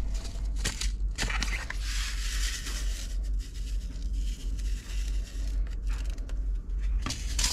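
A paper packet of leek seed being torn open, crinkled and shaken in a gloved hand: rustling and tearing paper with a few sharp clicks, the rustle fullest about two seconds in.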